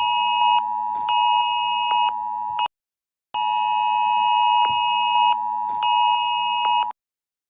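Electronic emergency alert tone: a steady, high-pitched electronic tone with a second, higher tone switching on and off over it. It breaks off for about half a second near the three-second mark, resumes, then cuts off abruptly about seven seconds in.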